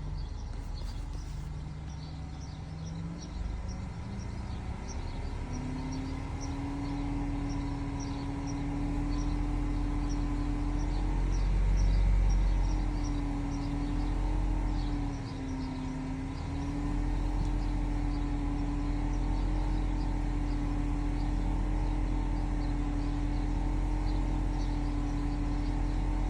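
BMW E60 530i's M54 straight-six engine running with a steady whine over its low running sound. The whine wavers slightly in pitch. It swells with the engine about halfway through, then settles.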